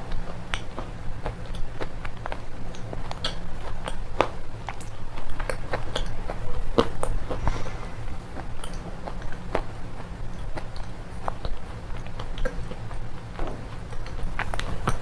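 Red slate pencils being bitten and chewed close to the microphone: a steady run of sharp, crisp crunches and cracks, several a second, over a steady low hum.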